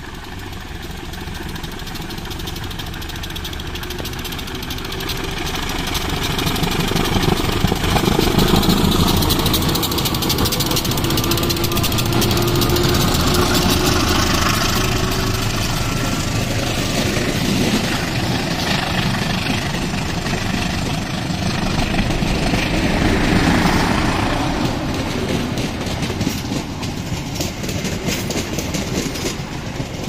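A CC 201 diesel-electric locomotive's engine running hard as it pulls the passenger train away and passes close by, growing louder over the first several seconds and putting out heavy smoke. In the later part the passenger carriages roll past with clattering wheels.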